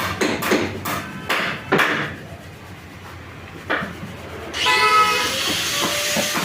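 Hammer blows in quick succession, then a pause broken by one more knock. Background music with guitar starts about four and a half seconds in.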